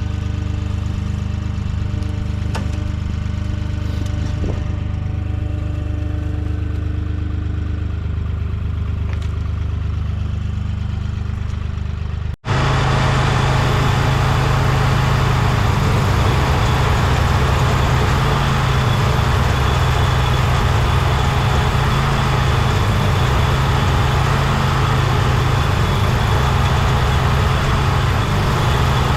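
An engine running steadily at idle, sounding rough. About twelve seconds in there is an abrupt cut to a louder, noisier engine sound that runs on steadily.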